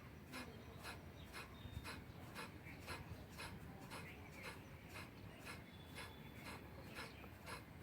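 Faint rhythmic breathing exercise: short, sharp, forced exhalations repeated evenly, about three a second, as in a pranayama practice.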